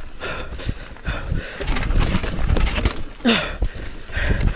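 Mountain bike descending a rough, wet dirt trail at speed: tyres rumbling over dirt and roots with irregular knocks and clatter from the bike, heard close up from the handlebars.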